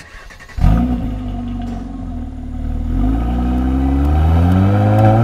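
Mercedes-AMG C 43's 3.0-litre biturbo V6 engine comes in loud about half a second in and holds a steady note. From about three seconds in, its pitch climbs steadily as the revs rise, until it cuts off abruptly at the end.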